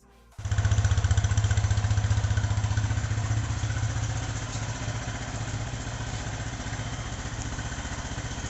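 Motorcycle engine starting about half a second in and idling with a rapid, even pulse, louder for the first few seconds and then settling to a steadier, quieter idle.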